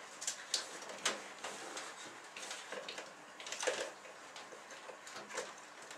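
Irregular small clicks and rustles of hands handling a power-supply cable and wire ends, the loudest about a second in and near the middle.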